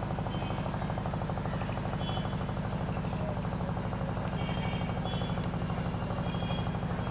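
A steady low mechanical hum with a fast, even flutter, with a few faint short high chirps over it.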